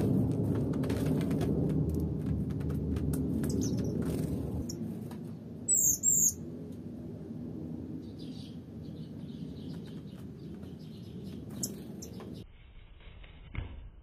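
Small songbird giving short, high chirping calls: a loud double chirp about six seconds in, with fainter chirps before and after. Over the first few seconds a loud low rumbling noise fades away.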